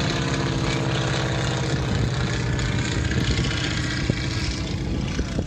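Boeing Stearman biplane flying overhead, its radial engine and propeller running steadily with a slight fall in pitch.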